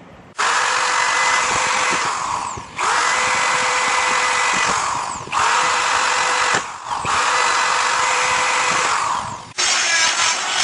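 Hand-held drill boring holes into a steel plate in four runs of two to three seconds, each ending as the motor winds down. About nine and a half seconds in, a small rotary tool with a cutting bit takes over with a rougher, choppier cutting sound.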